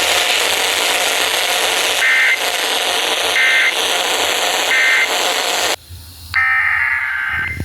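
Weather radio static hiss with three short Emergency Alert System SAME data bursts, about a second and a half apart: the end-of-message code closing a warning. The hiss then cuts out, and about a second later a longer SAME header burst of the next alert begins.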